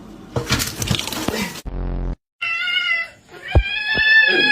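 A cat meowing loudly over and over, long drawn-out bending meows from about halfway through, the protest of a cat being bathed. Before the meows, about a second and a half of rushing noise.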